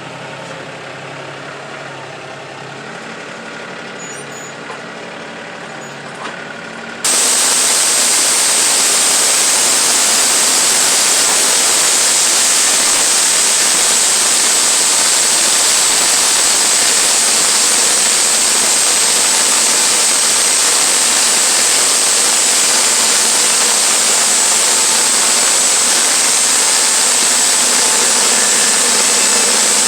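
An engine idling with a steady low hum. About seven seconds in, the sound jumps abruptly to a much louder, steady mechanical noise with a high whine: the sawmill running.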